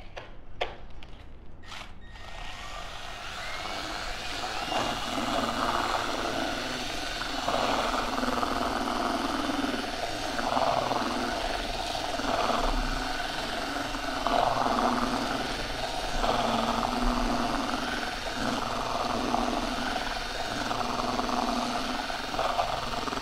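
Drill mixer with a paddle starting about two seconds in and running steadily, stirring two-part polyurea crack filler thickened with sand in a cup. The churning of the mix swells and fades every second or two over a thin motor whine. Two light knocks come just before it starts.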